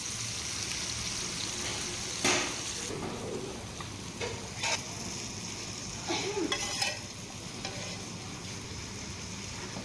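Masala-coated fish frying in hot oil in a pan, a steady sizzle, with a few short clinks and scrapes of a spatula: about two seconds in, around four and a half seconds, and a cluster around six to seven seconds.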